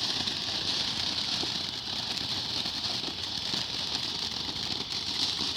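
Ground fountain firework spraying sparks: a steady hiss with fine crackling.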